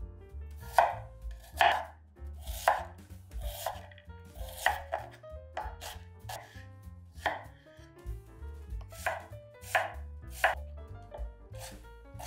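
Knife chopping food on a cutting board in uneven strokes, roughly one a second.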